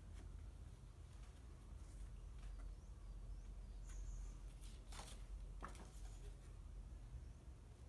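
Quiet room with a low steady hum, and light handling sounds as a linocut block and a sheet of paper are placed on an etching press bed: soft taps and paper movement, with two sharper clicks about five seconds in.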